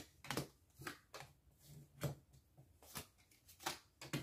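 Cards being dealt from a small hand-held fortune-card deck onto a tabletop: about ten soft flicks and taps, irregularly spaced.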